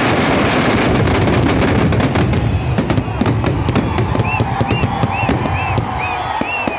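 Festival fireworks barrage: a dense, continuous rumble of explosions that turns about two seconds in into rapid, crackling firecracker bangs, many per second. Short whistles rise and fall over the crackling in the second half.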